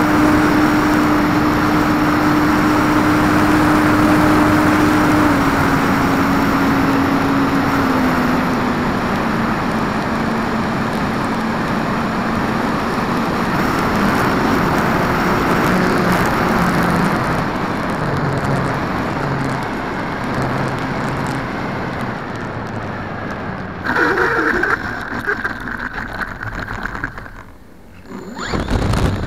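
Wind rushing over the onboard camera of an Art-Tech Cessna 182 RC plane in flight, with the electric motor and propeller whine stepping down in pitch as the throttle is eased back. About 24 seconds in comes a rough, bumpy rush as the plane touches down and rolls over grass, then the sound drops off sharply before a short loud rush of wind on the microphone at the very end.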